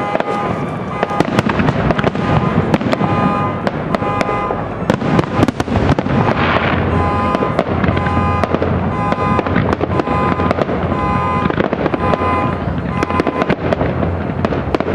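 Aerial fireworks display: shells bursting in rapid succession, many sharp bangs over a continuous low rumble, with a repeating pulsed tone pattern in the background.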